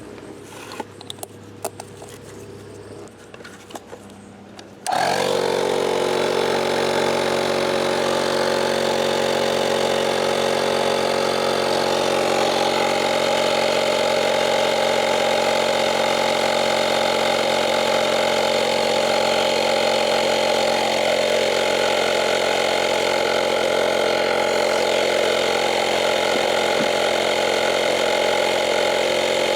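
Portable 12-volt tire inflator compressor switching on about five seconds in after a few light clicks, then running steadily as it airs up a flat tire.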